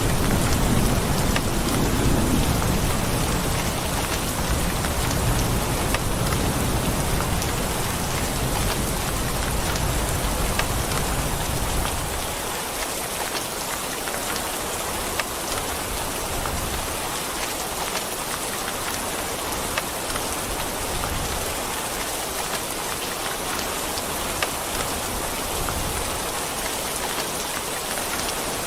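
Steady rain falling on a surface, with a low rumble of distant thunder that dies away about twelve seconds in.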